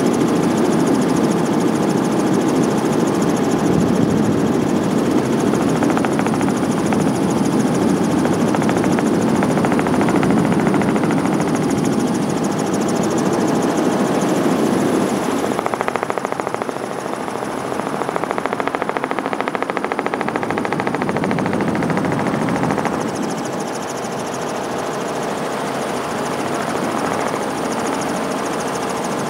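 Helicopter noise heard from aboard the helicopter: a steady, dense rotor chop and engine sound, loud throughout, easing slightly about halfway through and again near the end.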